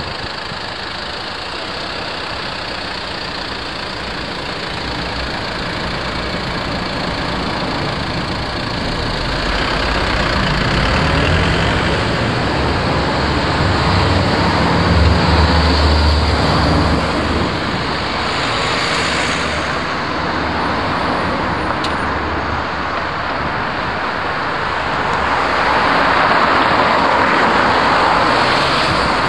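Road traffic going by steadily. It is loudest about halfway through, when a vehicle with a deep engine rumble passes, and swells again near the end.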